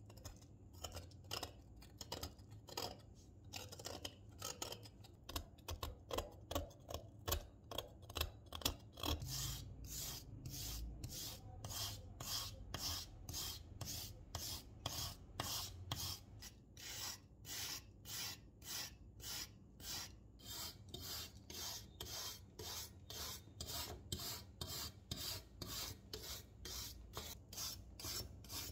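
Rust being scraped and then scrubbed off small rusty metal model-car parts, with a small metal scraper at first and then a wire brush. The brush works in quick back-and-forth strokes, about two a second, each a dry rasping scratch.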